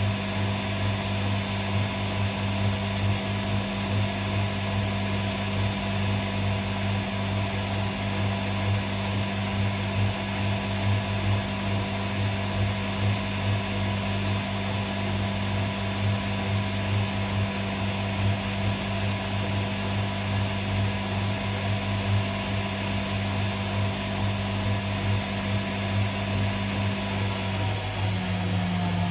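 Hotpoint Aquarius WMA37 washing machine running steadily on a spin, a constant motor hum and drone. Near the end the pitch starts to fall as the drum begins to slow.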